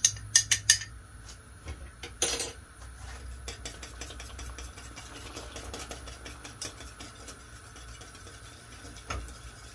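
A metal utensil clinking against a small glass jar while stirring cornflour and water into a slurry: a quick run of clinks at the start and a sharper knock about two seconds in. After that only a low steady hum and light handling as the slurry is poured into the gravy pan, with one more click near the end.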